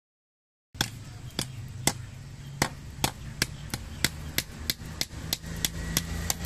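Hammer tapping a wooden sickle handle about fifteen times, two to three sharp blows a second, driving it onto the hot tang, which smokes as it burns its way into the wood. The blows start abruptly just under a second in.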